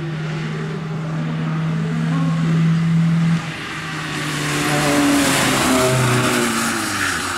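Volkswagen Lupo hill-climb car driving hard up the course. Its engine holds a steady high note, breaks off sharply about three and a half seconds in, then rises again in pitch as the car pulls away past the camera, with a loud hiss of tyres on wet tarmac as it goes by.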